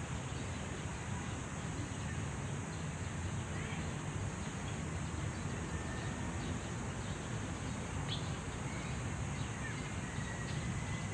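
Outdoor ambience: a steady low rumble with a few short bird chirps scattered through it.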